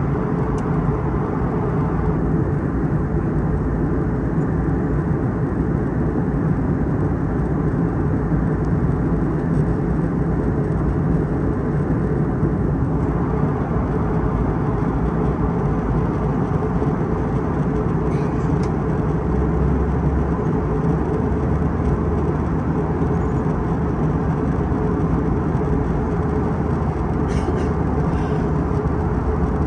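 Steady in-flight cabin noise inside an Airbus A321neo during descent: an even rush of airflow with a low engine hum underneath.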